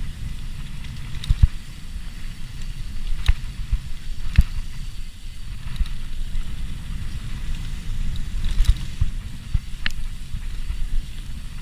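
Wind rumbling on the camera microphone during a fast mountain-bike descent, with the Giant Anthem SX rattling over the rough trail and several sharp knocks as the wheels hit bumps.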